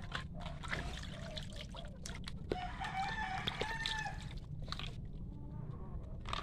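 A rooster crows once, starting about two and a half seconds in and lasting about a second and a half, over the splashing and sloshing of water as pieces of fish are rubbed clean by hand in a basin.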